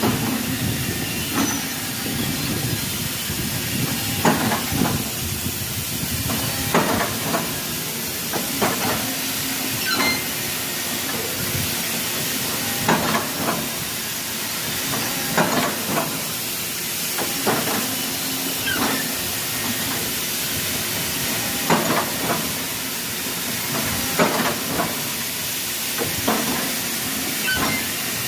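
Factory machinery noise: a steady hiss with irregular sharp knocks every second or two.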